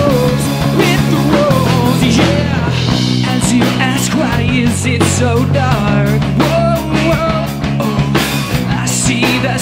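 Live rock band playing: a man singing lead over two electric guitars, a bass guitar and a drum kit.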